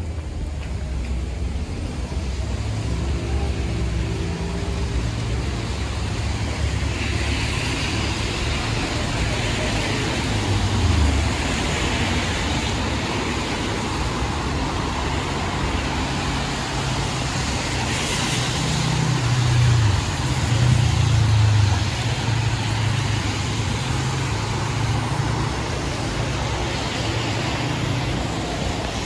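City road traffic on a wet street: the hum of passing car engines over the steady hiss of tyres on wet pavement. A vehicle's engine grows louder about twenty seconds in, then fades.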